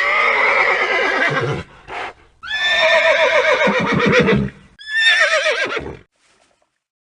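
Horse neighing three times, each whinny falling in pitch and breaking into a quavering shake, the middle one the longest.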